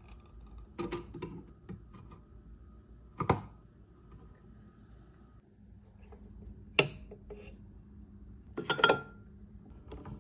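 Small metal watch parts and tools clicking and clinking as they are handled and set down on a watchmaker's bench: four short, sharp clicks a few seconds apart, the last a brief rattle and the loudest.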